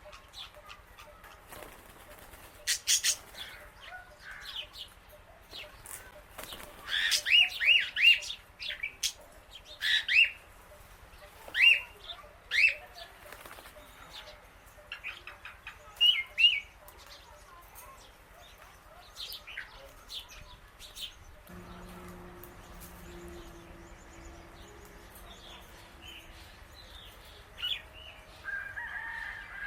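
Several birds calling: short, sharp chirps and squawks in quick clusters, most of them in the first two-thirds. Wings flap among the calls.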